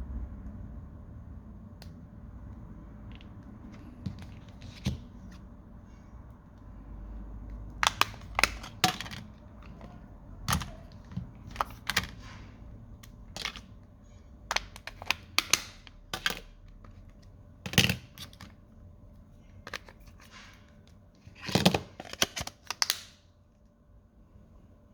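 Irregular sharp plastic clicks and taps of a smartphone being handled and its buttons pressed, scattered at first, then in a quick cluster near the end, over a faint low hum.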